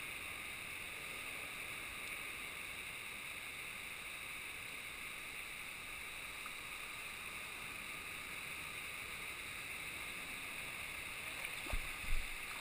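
River current rushing and gurgling right against a camera at the water's surface, a steady hiss, with a couple of low thumps near the end as water splashes over it.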